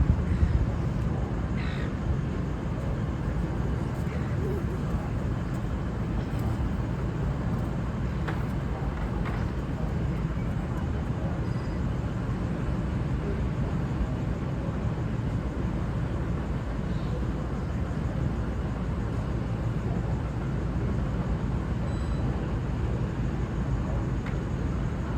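Steady low rumble of a V/Line VLocity diesel railcar set idling, with a few faint crow caws over it.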